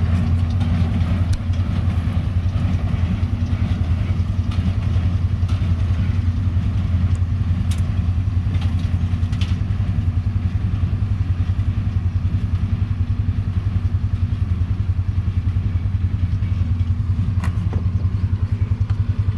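Tractor's diesel engine running steadily, a deep even hum with a fast regular pulse, with a few faint clicks of machinery over it.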